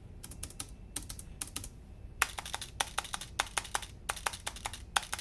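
Logitech keyboard spacebar pressed over and over, a run of sharp clicks. About two seconds in, the presses get louder and come faster.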